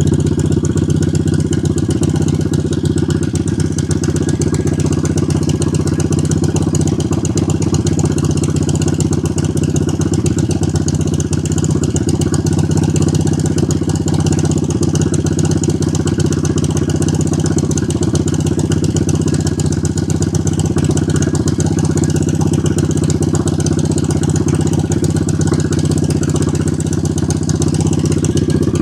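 Suzuki Volusia 800's V-twin engine idling steadily and evenly, with no revving.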